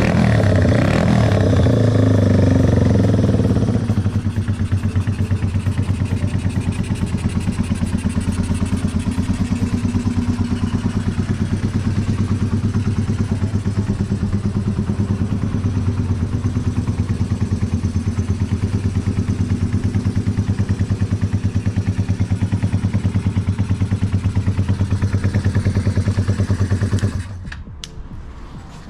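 Yamaha TW125's single-cylinder four-stroke air-cooled engine running, louder and higher for the first few seconds, then settling into a steady, even idle. It cuts off near the end.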